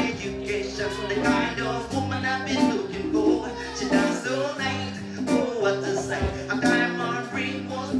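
Live band music: a semi-hollow electric guitar with drums and bass, a man singing over it.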